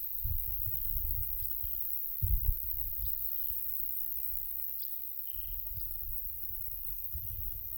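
Light summer wind buffeting the microphone in gusts, with a stronger gust about two seconds in, while small birds give short, faint chirps in the surrounding bushes and trees.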